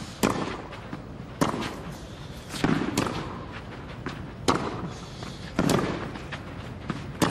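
Tennis ball struck back and forth by racket strings in a baseline rally on clay: about six sharp hits, roughly a second or a little more apart.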